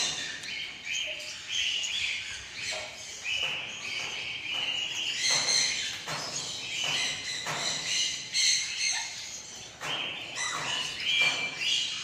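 Bare-eyed cockatoos (little corellas) calling: a string of short, high-pitched calls, one after another.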